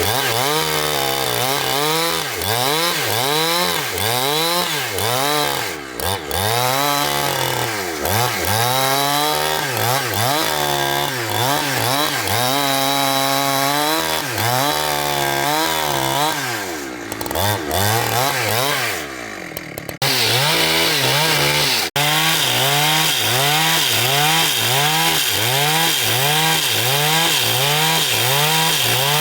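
Engine-driven saw running while cutting a log into boards, its engine pitch rising and falling over and over as the load on the blade changes. Near the middle it sinks low and quiet. After an abrupt break it comes back with a quicker, regular rise and fall.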